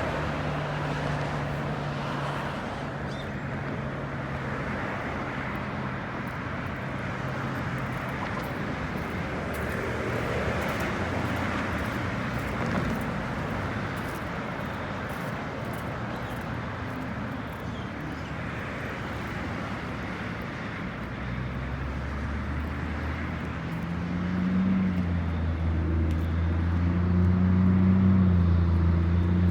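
Steady road traffic noise. Over the last several seconds a heavy vehicle's low engine sound grows louder as it comes close.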